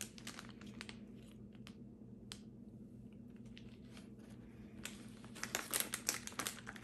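Plastic snack wrappers crinkling and rustling as packets are handled: a few light rustles and taps at first, then a denser burst of crinkling near the end as two cellophane-wrapped cakes are lifted out.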